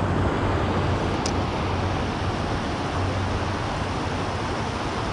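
Steady rush of river water pouring through a spillway, with a low wind rumble on the microphone. A single faint tick sounds about a second in.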